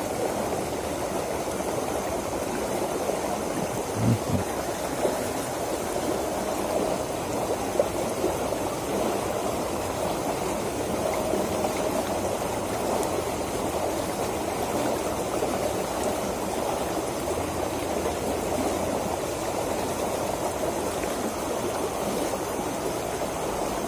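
Fast-flowing water rushing steadily down a small irrigation ditch, with one faint click near the middle.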